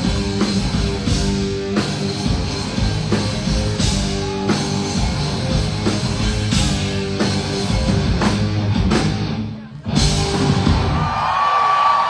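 Live rock band playing loud, with drum kit and guitar. The song ends on a final hit about ten seconds in that rings out as the crowd starts cheering.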